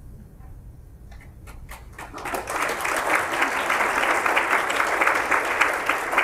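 Audience applauding: a few scattered claps about a second in, filling out within a second into dense, steady applause.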